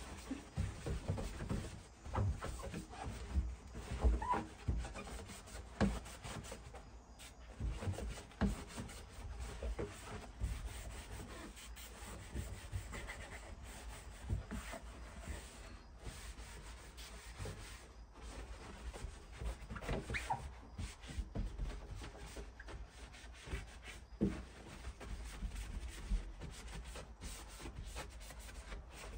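Irregular rubbing and scraping with scattered light knocks and clicks throughout.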